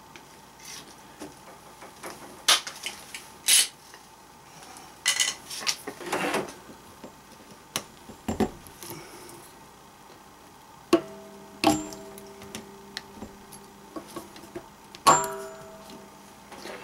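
Irregular clicks and knocks of metal hand tools and fittings being handled during PEX plumbing work, with two metal clanks late on that ring on for a few seconds.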